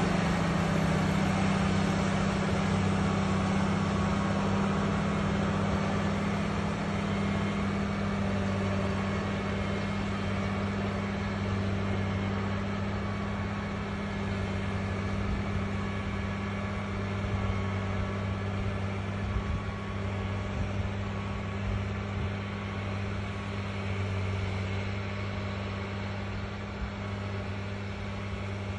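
Diesel engines of several large farm tractors running steadily under load as they pull cultivators through the soil, a low, even drone.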